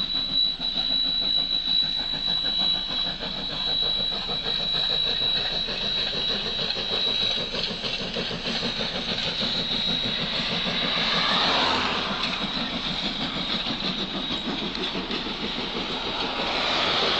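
Steam locomotive hauling a train of carriages past at close range, its exhaust chuffing in a steady rapid rhythm over the rolling of the wheels on the rails.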